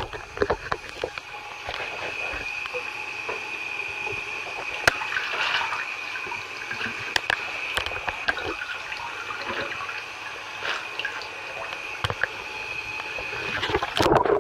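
Bathtub water sloshing and splashing as leather work boots move through it, over a steady rushing sound, with scattered sharp ticks.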